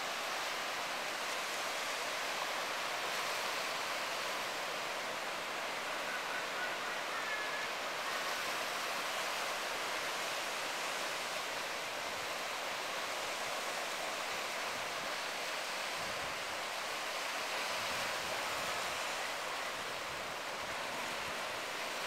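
Steady wash of ocean surf on the shore: an even hiss with no separate wave crashes standing out.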